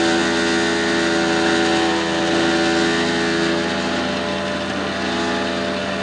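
Tow truck's engine running at a steady, raised speed: a steady hum with several held tones.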